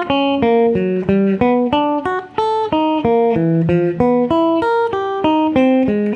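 Schecter Diamond Series electric guitar with a clean tone, playing a sweep-picking drill: single notes picked one after another across the strings in a repeating arpeggio shape, about three notes a second, each note ringing until the next starts, stepping up and back down in pitch.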